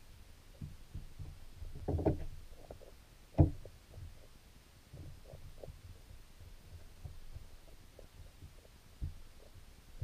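Muffled underwater sound from a camera submerged in a creek: a low, uneven rumble of moving water with scattered dull knocks, a short cluster of them about two seconds in and one sharper knock about three and a half seconds in.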